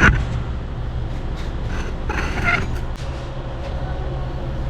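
Hand work on a motorcycle exhaust: metal parts and tools clicking and creaking as the titanium slip-on is fitted and its bolts are tightened, with a squeaky creak about two seconds in, over a steady low hum.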